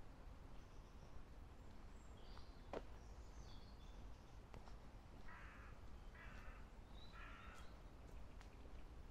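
Faint outdoor park ambience with birds: thin high chirps in the first few seconds, then three harsh calls about a second apart. One sharp click comes a little before the calls.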